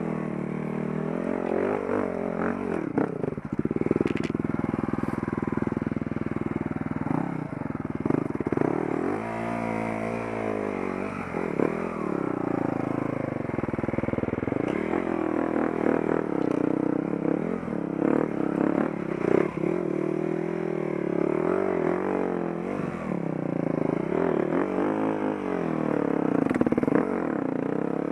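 Enduro dirt bike engine under way, its pitch rising and falling repeatedly as the throttle is worked over rough ground. Occasional knocks and clatter come from the bike over bumps.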